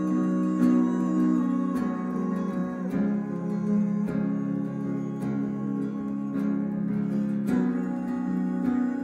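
Acoustic guitar strummed with no vocals, a chord struck about once a second and left to ring.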